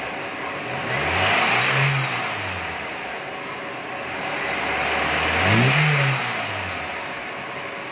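Lada Niva 1.7-litre fuel-injected four-cylinder engine revved twice from idle, each rev rising and falling back smoothly. Its valve timing has just been corrected and its exhaust manifold leaks repaired.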